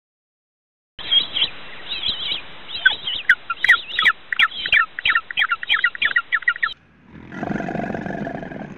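A bird chirping rapidly, a dense string of short, sharp, high calls that starts about a second in and stops abruptly near seven seconds. After a brief break, a deeper, steadier animal sound begins.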